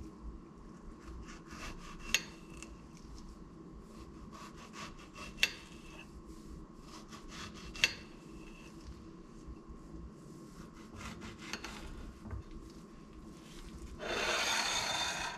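Kitchen knife slicing strawberries on a ceramic plate: soft scratchy cutting, with three sharp clinks as the blade meets the plate, each ringing briefly. Near the end comes a louder scrape lasting about a second.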